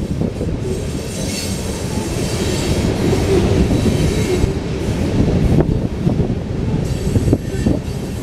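Loaded freight cars of a passing coal train rolling by: a steady low rumble of steel wheels on rail, with sharp clanks as the wheels cross rail joints. A thin wheel squeal rises above it for a few seconds, starting about a second in.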